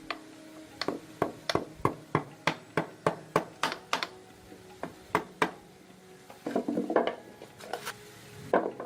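Hand-tool work on motorcycle parts: a run of sharp knocks at about three a second, then a short burst of clattering and one more knock near the end.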